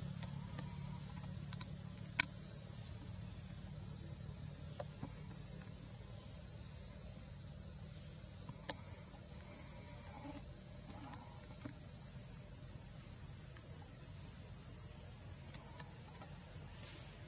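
Steady high-pitched chorus of forest insects over a low hum, with two sharp clicks, one about two seconds in and another near nine seconds.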